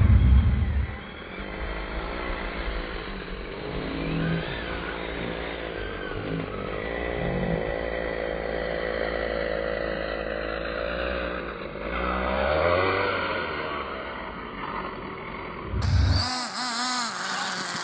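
Brushless electric RC trucks driving on grass, heard slowed down for most of the stretch: the motors' whine drops to a low, slowly wavering drone, with a heavy thump at the start. Near the end the sound returns to normal speed, with the motors' high whine rising and falling quickly as they rev, and another thump.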